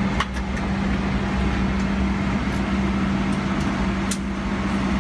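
Steady cabin hum of a Boeing 777-300ER with its air-conditioning running, a constant low drone with a steady tone in it. Two brief clicks, one just after the start and one about four seconds in.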